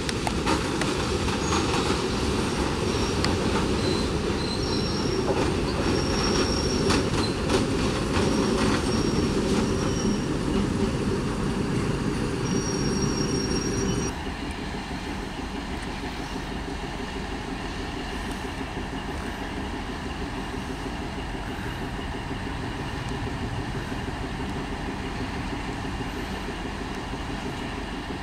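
Diesel-electric multiple unit (DEMU) train running by on the station line: a steady rumble with clicks of wheels over rail joints and short high-pitched wheel squeals. About halfway through, the sound cuts suddenly to a quieter, steady train rumble.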